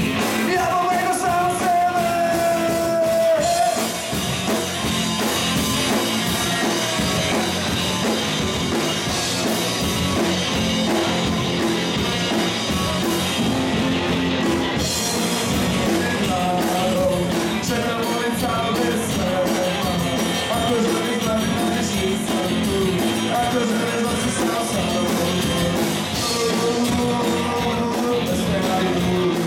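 Live rock band playing a song with vocals, a long held note near the start over the full band.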